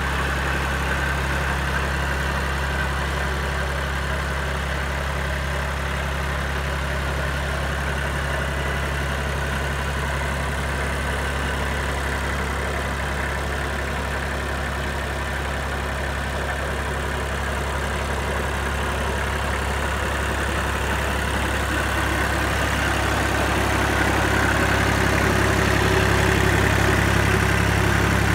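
Kubota L2601 compact tractor's diesel engine idling steadily, growing a little louder near the end.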